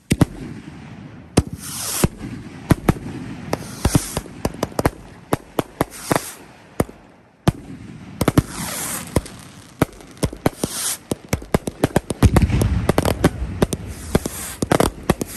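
Rockets from a 30-shot rocket rack firing one after another. Each goes up with a whoosh that falls in pitch, about every two seconds, followed by the sharp cracks of the bursts. From about twelve seconds in, the cracks come thick and fast over a heavy rumble.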